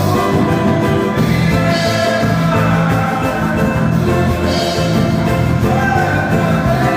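Worship music with sustained held chords over a steady low pulse.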